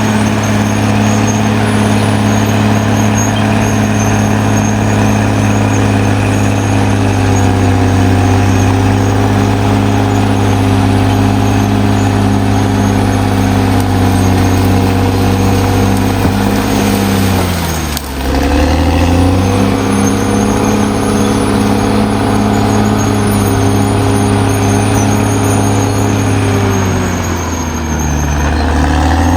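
Caterpillar D6R XL bulldozer's diesel engine running hard. Its speed drops sharply twice, about two-thirds of the way through and again near the end, then climbs back each time.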